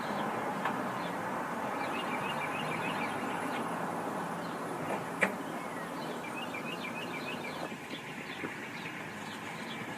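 Outdoor background: a steady low hiss and rumble with small birds chirping in quick runs, and one sharp click about five seconds in.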